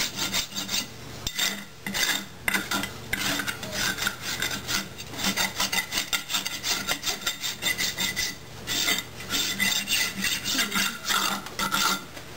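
Farrier's rasp filing a horse's hoof in quick, even strokes, about three a second, with two short pauses.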